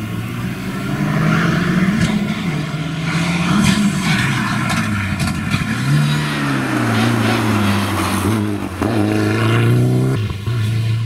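Mitsubishi Lancer Evolution V rally car's turbocharged four-cylinder engine going through a hairpin at speed, its pitch falling and rising with the gear changes, with a few sharp cracks early on and a climbing pitch as it accelerates away near the end.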